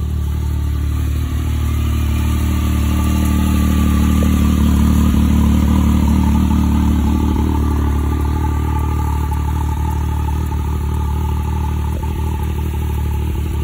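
Can-Am Maverick X3 Turbo RR's turbocharged three-cylinder engine idling steadily, a little louder midway as the rear exhaust outlet comes close.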